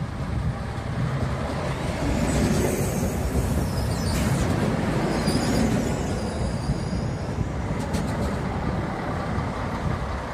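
Class 650 Regio-Shuttle diesel railcar pulling into the platform and slowing to a stop: low diesel rumble and wheel noise on the rails. In the middle, as it passes, there is a high squeal and a few clicks.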